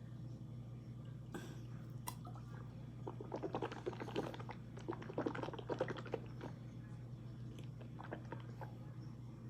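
A person chewing a mouthful of dry corn starch: a dense run of small crunching crackles starting about three seconds in and lasting a few seconds, with a few scattered clicks before and after. A steady low hum runs underneath.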